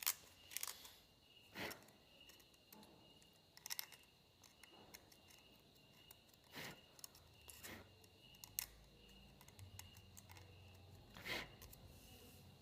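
Faint, scattered scraping and clicking of a knife carving out and cleaning the finger holes of a dry bamboo flute, a few strokes every second or two.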